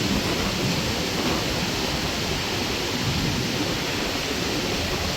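Steady rush of strong wind rumbling on the microphone, mixed with the noise of a rough sea.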